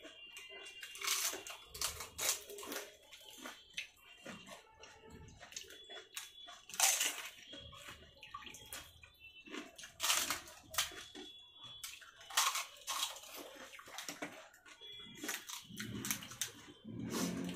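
Fuchka (pani puri) being eaten in quick succession: crisp hollow shells crunching and cracking, with wet slurping of the filling water. The crunches come in irregular sharp bursts.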